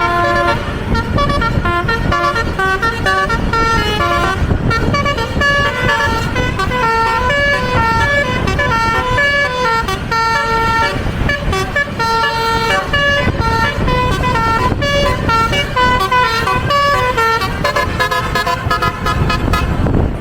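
Basuri telolet horn on a tour bus playing a melody: a continuous run of short, stepped horn notes changing pitch every fraction of a second, over a steady low rumble.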